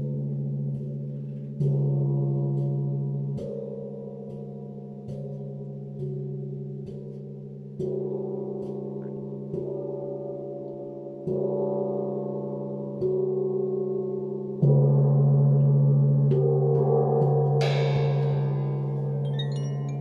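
A gong struck softly again and again, about every one and a half to two seconds, each strike building on a long, layered ringing hum; the strongest strike comes about fifteen seconds in. Faint high chime tinkles from a Koshi Terra chime sound throughout, with a bright high shimmer near the end.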